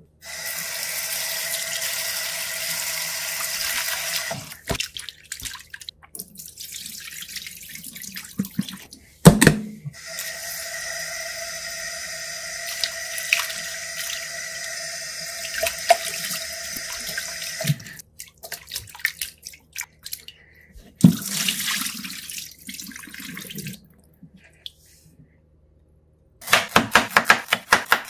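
Tap water running into a stainless steel bowl of raw chicken gizzards in a sink while hands rinse and rub them. The water runs for about four seconds, stops, then runs again for about eight seconds, with a sharp knock and small splashes and clinks between. Near the end, a quick run of cleaver strokes slicing ginger on a bamboo cutting board.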